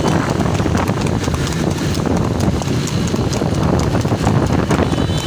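Hoofbeats of a tanga horse racing on a paved road, many quick sharp clicks over a steady low rumble of the moving carts and traffic.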